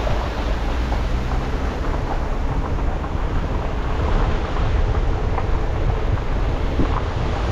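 Car driving slowly on an unpaved dirt road: a steady low engine and road rumble with small crunches from the tyres, and wind buffeting the microphone.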